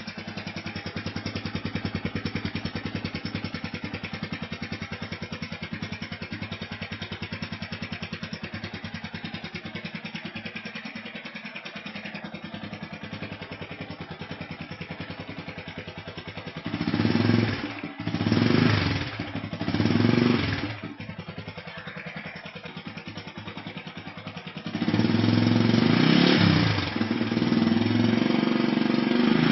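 Yamaha New Vixion's single-cylinder engine running through a stock Honda Tiger Revo muffler, heard close at the tailpipe: idling steadily, then revved three times in quick succession just past halfway, dropping back to idle, and held at raised revs near the end.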